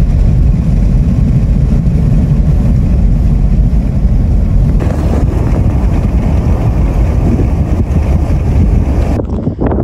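Loud, rumbling noise from a car driving on an open highway. About five seconds in it gives way to gusty wind buffeting the microphone outdoors.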